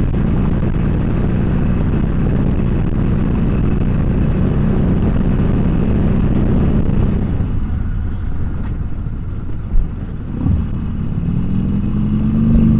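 Harley-Davidson Sportster 1200's air-cooled V-twin engine running at highway speed. It eases off about seven seconds in, there is a brief thump near ten seconds, and near the end the engine revs up again with a rising pitch.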